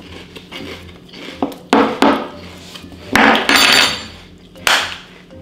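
Mouthful of crunchy Cinnamon Toast Crunch–style cereal in milk being chewed close to the microphone, in three loud crunching bursts about two, three and four and a half seconds in.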